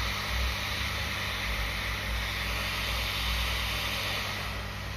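Hot air rework station blowing a steady hiss while desoldering MOSFETs from a laptop motherboard, with a low electrical hum underneath; the hiss thins slightly near the end.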